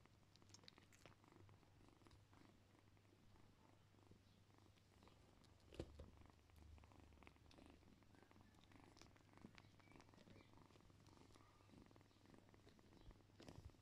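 Cat purring softly and steadily while kittens nurse, with faint rustling and small clicks; a brief low bump about six seconds in.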